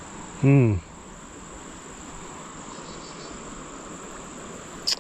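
Insects droning steadily with a thin high-pitched buzz. A short vocal sound from a person comes about half a second in, and there is one sharp click near the end.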